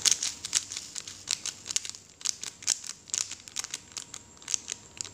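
Small plastic zip bag crinkling as blue diamond-painting beads are poured from it into a plastic bead tray, with an irregular patter of light clicks as they land; it stops shortly before the end.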